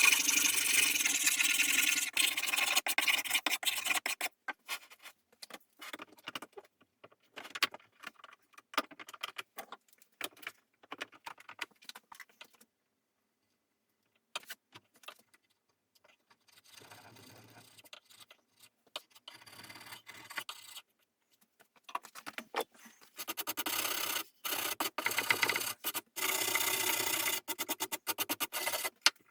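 Hand restoration work on furniture, cleaning and sanding: a run of dense rubbing strokes at the start, then scattered small clicks and handling noises, a short pause, and another long run of rubbing strokes over the last seven seconds or so.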